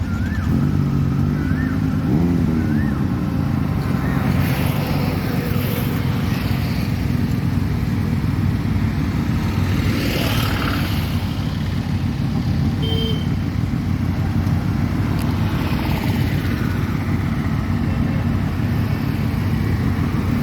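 Steady low rumble of a motor vehicle on the move, with road and wind noise, and other traffic swelling past about three times.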